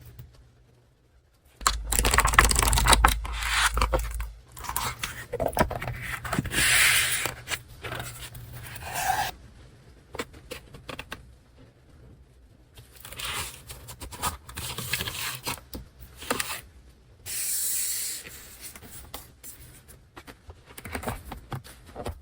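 Paper and paper packaging being handled, rustled and torn open by hand, in short irregular bouts with pauses between.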